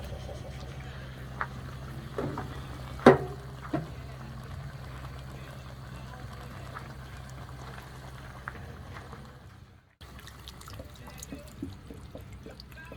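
Liquid bubbling and simmering in a pot of chicken adobo on a portable gas burner, over a steady low hum, with a few sharp knocks. The loudest knock comes about three seconds in. The sound fades and cuts off about ten seconds in.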